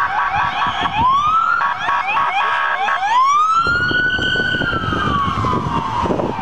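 Emergency vehicle sirens wailing, switching to a fast yelp for a second or so about a second and a half in, then back to a long rising and slowly falling wail, over street noise.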